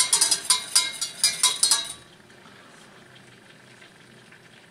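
A utensil stirring and scraping in a pan of melted butter and white pepper, quick strokes about four or five a second. It stops abruptly about two seconds in, leaving a faint steady hiss.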